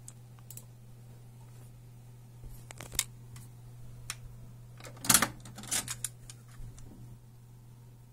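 Scattered sharp clicks and plastic clacks from a cassette deck's controls and the cassette being handled, the loudest cluster about five to six seconds in, over a steady low hum.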